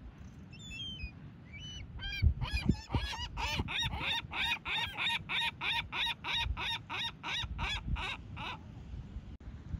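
A gull calling: a few short cries, then a long, even run of about twenty loud repeated cries, roughly three a second, that stops shortly before the end.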